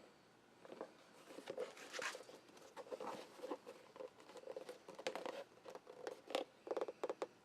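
Faint irregular clicks, taps and rustling of leather pieces being handled and fitted together on a workbench.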